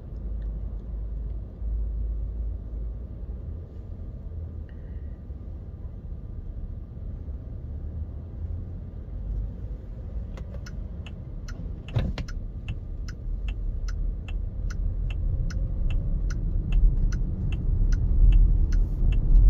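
Low cabin rumble inside an electric SUV. About halfway in, a turn-signal indicator starts ticking about twice a second, with one thump shortly after. The rumble grows near the end as the car pulls away.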